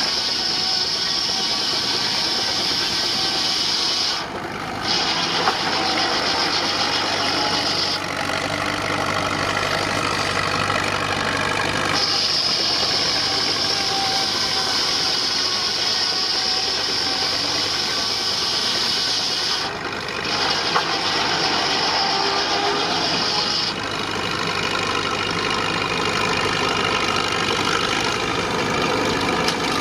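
A steam-powered sawmill running, belt-driven by a 19-65 Uniflow Baker steam traction engine. A steady low running sound is joined by a high hiss that comes and goes several times.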